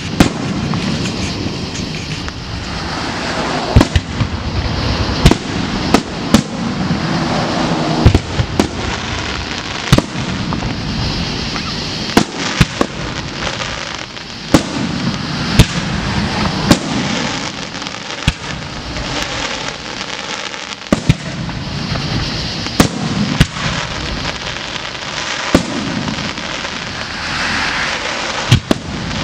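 Aerial firework shells bursting in quick succession in a fireworks display: repeated sharp bangs, about one every second or so, over a continuous dense wash of crackling and rumbling noise.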